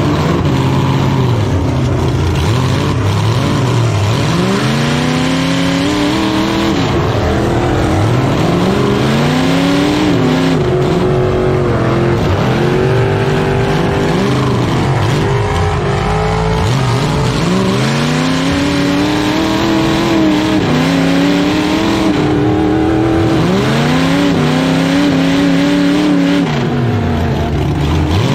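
Stripped-out stock pickup truck's engine revving up and falling back over and over, heard from inside the gutted cab as the truck is driven hard.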